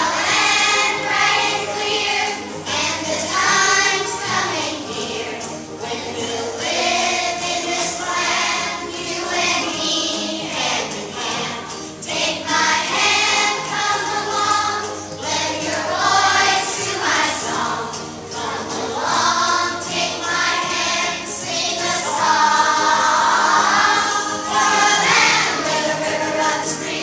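A third-grade class of children singing a song together as a choir.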